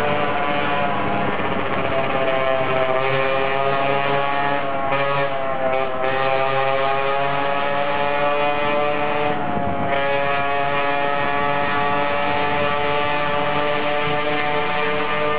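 50cc two-stroke scooter engine running steadily while riding, its pitch wavering slightly with the throttle and dipping briefly before picking up again about ten seconds in.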